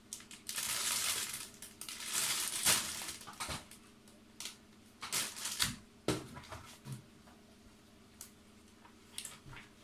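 Clear plastic bags of model-kit runners crinkling as they are handled, followed by several light knocks and rustles as the bagged plastic runners are set down on a stack.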